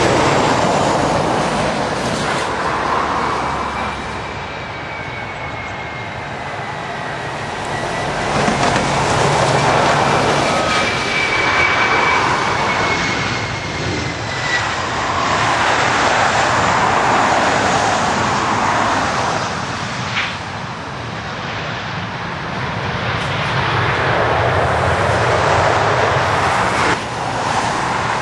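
Airliner engines on a landing approach: a continuous rushing roar that swells and fades, with a thin high engine whine through the middle part.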